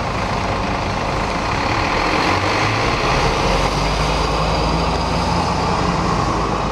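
Diesel engine of a double-decker bus running as it moves off slowly, a steady low drone that grows a little louder about two seconds in.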